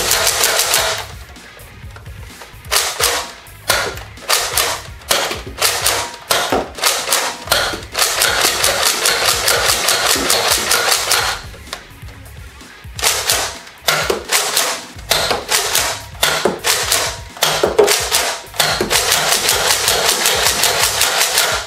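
Background music with a fast, steady percussive beat, dropping away briefly twice.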